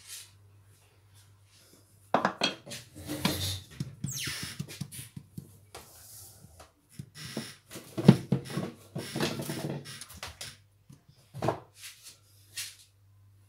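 Wooden rolling pin and wooden rolling board being set down and moved about on a wooden tabletop, with a hand pressing dough flat. It comes as a series of irregular knocks and scrapes, the loudest about two seconds and eight seconds in, and one scrape falling in pitch around four seconds.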